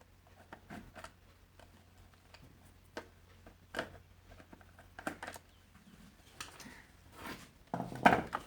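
Plastic casing of a 12 V sprayer charger being pried open and handled: scattered small clicks and taps, with a louder knock near the end.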